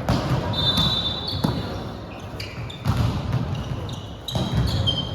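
Volleyball rally in a gym: several sharp smacks of the ball being hit and landing, with short high squeaks of sneakers on the court floor and a background murmur in a large hall.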